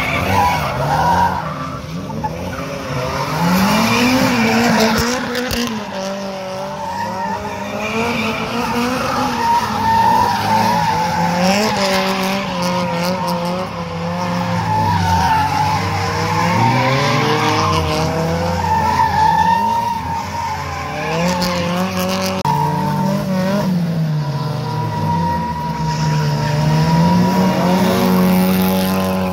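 Drift cars sliding on the track, engines revving up and falling back again and again while the tyres squeal.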